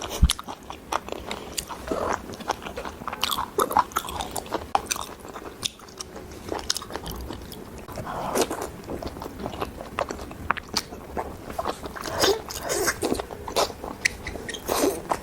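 Close-miked chewing and biting of Northeastern Chinese blood sausage: a continual run of irregular wet mouth clicks, smacks and soft crunches.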